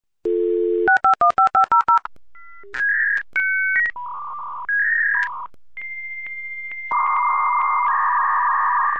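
Dial-up modem connecting: a dial tone, then a quick run of about eight touch-tone dialing beeps, then the modem handshake of shifting tones and hissing screech.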